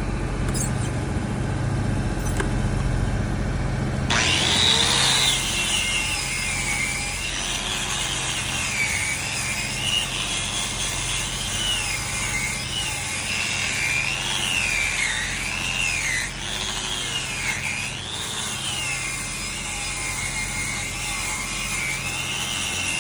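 A steady low engine hum, then about four seconds in a handheld power tool starts, its high whine wavering up and down as it is pressed and eased against the work.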